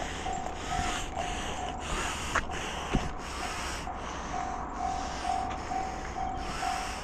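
Japanese railway level-crossing alarm ringing, a single electronic tone repeating about twice a second, which warns that a train is approaching. A steady rough rushing noise sits under it on the microphone.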